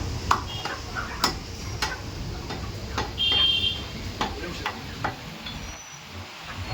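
Knife chopping through chicken, a sharp chop about once a second, uneven in spacing, over a steady low hum.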